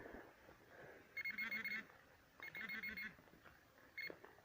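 Pinpointer beeping in rapid pulses over the dug soil, in three short bursts, signalling a metal target close by.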